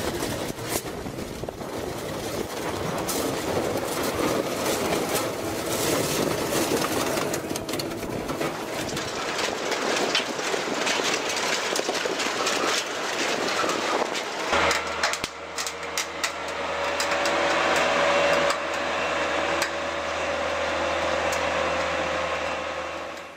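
Industrial twin-shaft shredder crunching and tearing a vehicle body, a dense run of cracks and metallic clanks. About fourteen seconds in it changes to a steady machine hum of a shredder running.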